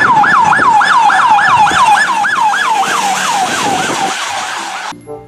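Electronic siren of a sheriff's patrol SUV sounding its yelp: a loud, fast rising-and-falling wail, about three to four sweeps a second, growing fainter as the vehicle drives away and cutting off suddenly near the end.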